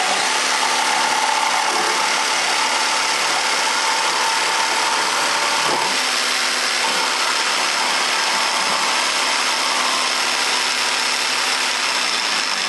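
Corded jigsaw running steadily as its reciprocating blade cuts through a pallet-wood board.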